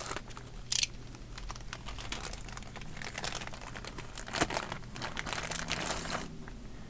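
Plastic packing bag crinkling and rustling as it is handled, flecked with styrofoam, with a sharp rustle about a second in.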